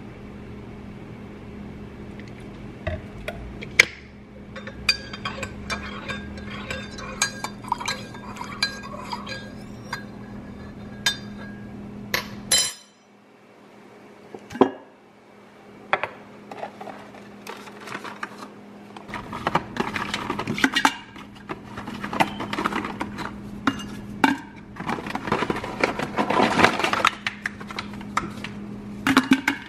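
Dishes and cutlery clinking and clattering in many short knocks, over a steady low hum that cuts off suddenly about halfway through and comes back a few seconds later.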